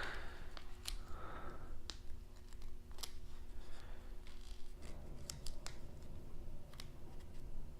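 Scattered sharp clicks and light taps of small metal and plastic 3D-printer parts being handled and fitted by hand, about a dozen over several seconds, over a faint steady hum that fades about two-thirds of the way through.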